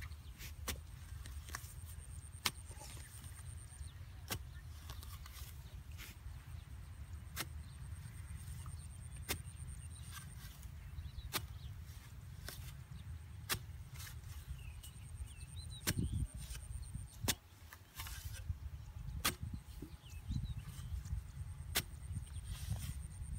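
A long metal digging bar jabbing into wet, clumpy soil, each stroke a sharp knock, roughly every one to two seconds over a low rumble.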